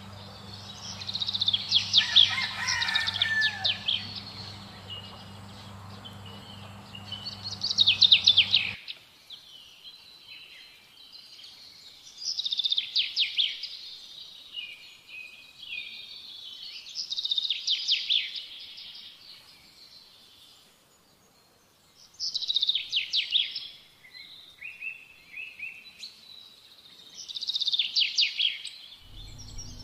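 Small songbird singing short phrases of rapid high chirping notes, repeated about every five seconds. A low steady hum under it stops abruptly about nine seconds in.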